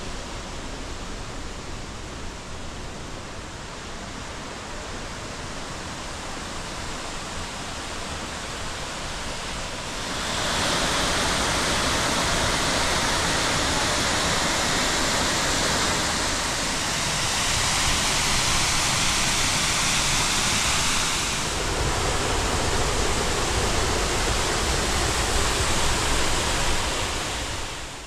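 Steady rush of the Upper Düden Waterfall, heard from the caves behind it. It is quieter and duller at first, then louder and brighter from about ten seconds in.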